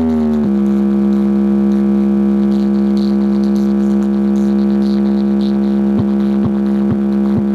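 Electronic synthesizer tone from a sound-check track played loud through a large DJ speaker stack. It glides down in pitch in the first half second, then holds one steady note. Near the end it breaks into quick pitch dips about twice a second.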